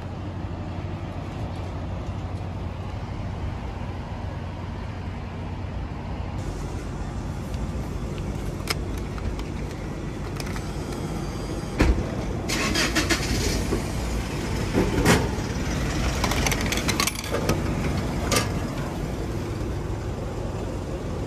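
Clicks, rattles and knocks of a vending machine being worked by hand, with a banknote fed into its note slot, over a steady low hum. A sharp knock comes a little past halfway, followed by a run of rattling clicks and a few more knocks.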